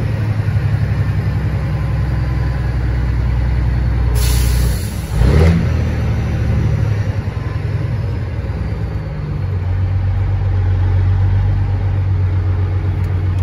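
Cat 3406E diesel of a Freightliner FLD120 semi running at low speed as the truck creeps forward, a steady low rumble heard from inside the cab. About four seconds in, a hiss of air lasting about a second and a half, typical of the air brakes.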